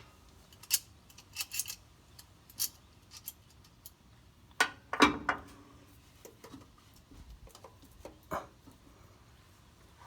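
Scattered metal clicks and clanks of an oil filter wrench being worked around the oil filter in a tight space under the engine, with a louder clank about five seconds in.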